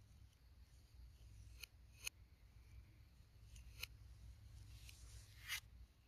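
Quiet light tapping of a steel palette knife working thick acrylic paint on a palette: a few scattered taps, then a longer scrape of the blade across the paint about five seconds in.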